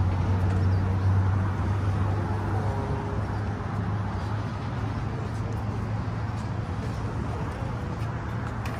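Road traffic below: a steady low engine rumble with a haze of traffic noise, the rumble easing off after the first couple of seconds.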